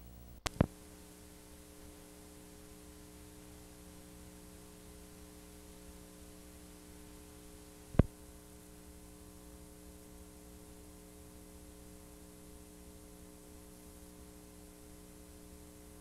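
Steady electrical mains hum with faint hiss, as on an unrecorded stretch of videotape once the broadcast recording has ended. A pair of sharp clicks comes about half a second in and another single click about eight seconds in.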